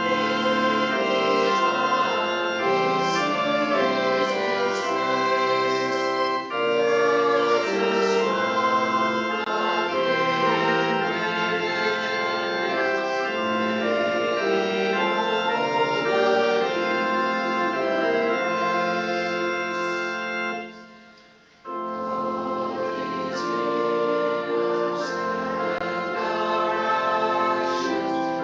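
Church organ playing slow music in long held chords. It stops briefly about two-thirds of the way through, then starts again.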